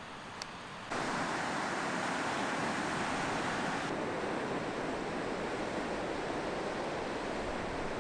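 Surf breaking and washing on a beach: a steady rushing noise that starts abruptly about a second in, after a quieter stretch with one small click, with wind on the microphone mixed in.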